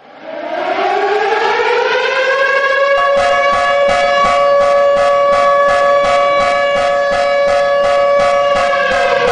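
Civil defense siren winding up from silence over about two seconds, a second, higher tone joining about three seconds in to hold a steady two-tone wail with an even pulsing, then starting to wind down at the end.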